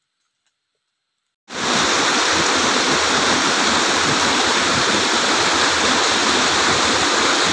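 Near silence, then about a second and a half in, the loud, steady rush of a rocky waterfall cascade starts abruptly and holds.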